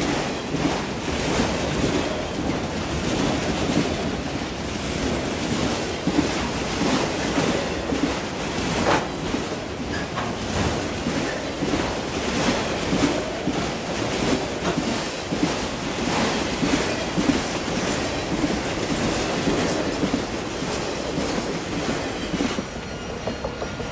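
Freight train of autorack cars rolling past close by: a steady rumble of steel wheels on rail with a repeated clatter, which drops away near the end as the last car passes.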